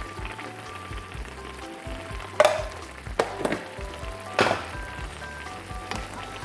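Chicken afritada simmering and bubbling in a pan, with three sharp knocks around the middle, over background music with a steady beat.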